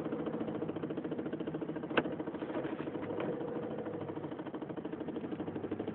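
Four-wheel-drive vehicle's engine running steadily, heard from inside the cabin while driving slowly through snow, with one sharp click about two seconds in.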